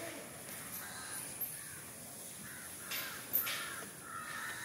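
Crows cawing several times.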